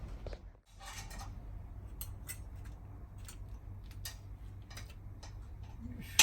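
Light metallic clicks and clinks of tools and brake parts being handled, with a short scraping rustle about a second in and a sharp click at the very end, over a steady low hum.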